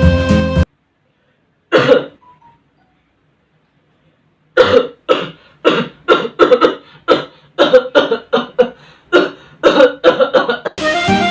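A person coughing: one cough, a pause of a couple of seconds, then a long run of short, rapid coughs, two or three a second, performed as a comic type of cough.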